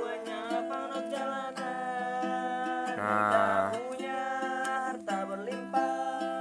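Music carried by a plucked string instrument, guitar or ukulele, with steady held notes.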